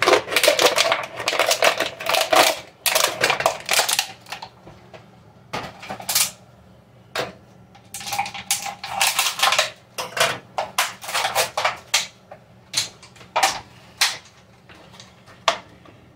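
Thin plastic water bottle crinkling and crackling as it is handled and worked into a funnel. The crackling is dense for the first few seconds, then comes in scattered separate crackles.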